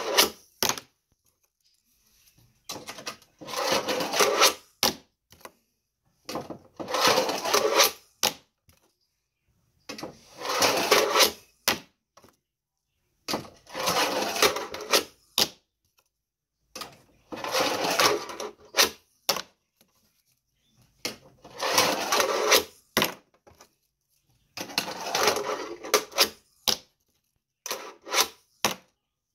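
A fingerboard rolling across a small ramp, ending each run in a few sharp clacks as the board is popped, lands or hits the deck. Tricks are tried over and over, about every three and a half seconds, eight or so times in all.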